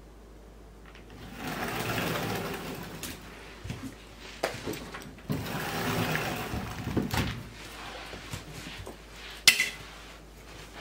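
Rustling of a black nylon backpack and clothing as the bag is handled and taken off, in two long stretches with scattered clicks. A sharp click about nine and a half seconds in is the loudest sound.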